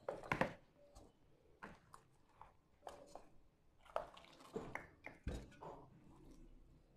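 Raw buffalo trotters being set one after another into a large aluminium cooking pot: faint wet handling sounds and soft knocks of the feet against the pot's metal, with the loudest thump about five seconds in.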